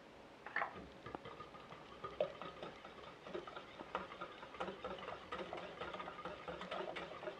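Wire whisk beating an egg into a flour-and-water batter in a metal saucepan: fast, uneven clicking and scraping of the wires against the pan, starting about half a second in.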